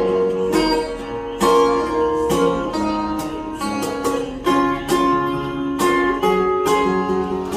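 Acoustic guitar strumming chords, the chord changing every second or so.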